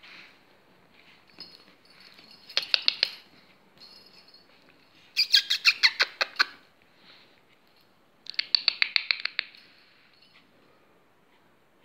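Long-haired Chihuahua puppies' claws clicking rapidly on a tiled floor as they scamper and play, in three short bursts of about ten clicks a second.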